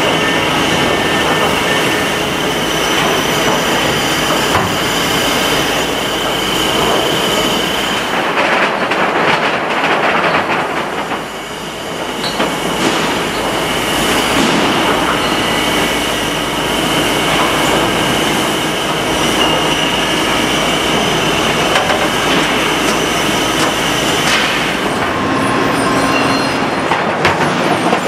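Shot-blasting machine running loud and steady, a rumbling metallic clatter with a constant high whine. It is loading and tumbling a batch of cast-metal auto parts, with a spell of heavier rattling about eight to eleven seconds in.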